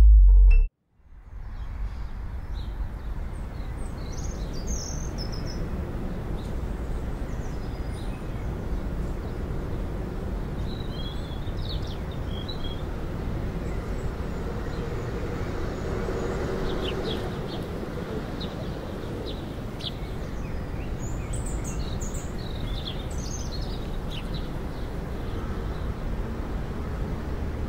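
Park ambience: a steady low background noise with birds chirping briefly now and then. Music cuts off abruptly just under a second in.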